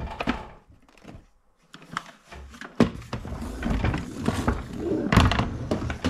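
Knocks, clunks and rustling of things being handled and set down, with a sharp knock about three seconds in and another loud one a little after five seconds.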